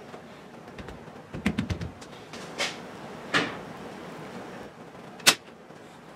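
Headliner material being stretched and pressed onto a car's roof frame by hand: a quick run of light knocks about a second and a half in, two short rustling swishes, and one sharp click about five seconds in, the loudest sound.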